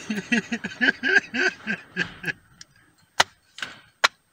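A man laughing hard in rhythmic 'ha-ha-ha' pulses, about four a second, for about two seconds. After it fades, two sharp knocks follow, about a second apart.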